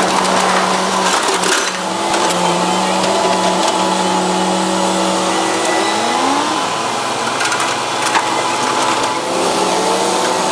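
Heavy excavator's diesel engine working under load, its pitch sliding up and down as the hydraulics take the strain, a little past the middle and again near the end. A few sharp knocks and crunches of material break through.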